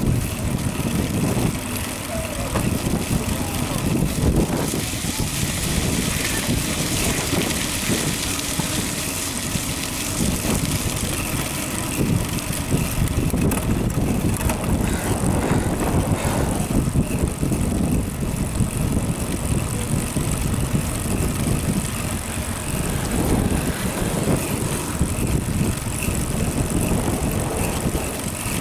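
Steady, continuous noise of a bicycle ride, with air rushing and fluttering over the microphone.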